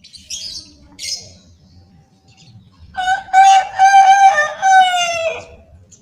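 Zebra dove cooing: one phrase of rapid, evenly pitched notes starts about three seconds in, runs about two and a half seconds and ends on a falling note. Faint high chirps come near the start.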